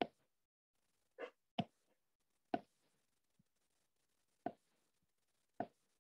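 Six short, sharp taps at uneven intervals, with quiet between them; the one about a second in is a little longer and softer than the rest.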